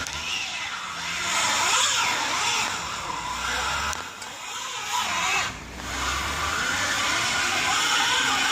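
A car's tyres spinning on glare ice as the engine is revved in repeated surges, a whine that rises and falls several times: the car cannot get traction.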